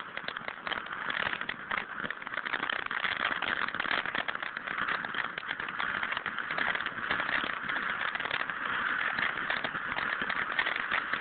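A lit ground firework burning with a dense, continuous crackle of many small rapid pops.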